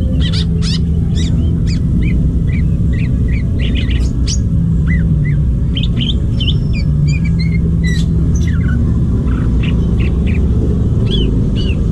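Wild green leafbird (cucak ijo) singing a rapid, varied run of short chirps and slurred whistled notes, over a loud steady low rumble.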